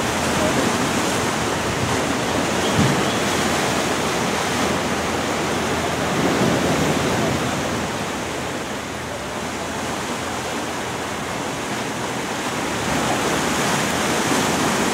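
Sea surf rushing against the rocky cliffs of a narrow inlet, a steady wash of noise that eases a little midway and builds again near the end.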